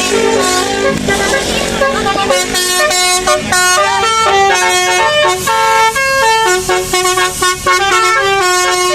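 Bus telolet Basuri multi-tone horn playing a tune, loud held notes stepping quickly from one pitch to the next, with sweeps in pitch in the first second.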